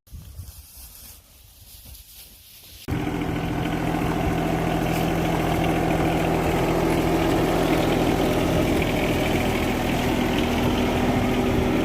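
A vehicle engine idling steadily, coming in suddenly about three seconds in. Before that there are only faint outdoor sounds.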